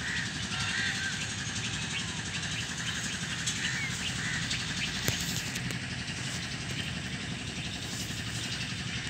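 Outdoor background noise: a steady low rumble with a few short bird chirps in the first half, and a single sharp click about five seconds in.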